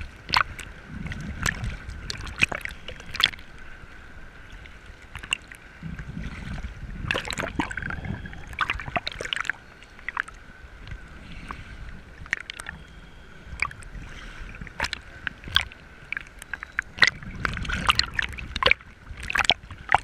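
Choppy sea water sloshing and splashing around a camera at the surface, with many sharp splashes and stretches of low, muffled rumble as it bobs through the waves and dips under.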